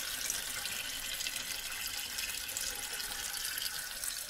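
Toilet cistern refilling after a flush: water hisses steadily through the float-operated fill valve into the tank.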